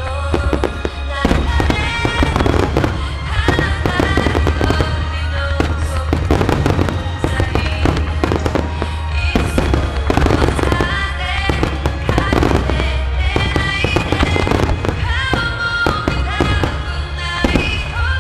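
Nomura Fireworks display firing rapidly: a dense, continuous string of shell and mine bursts with crackle. Music is playing along with it.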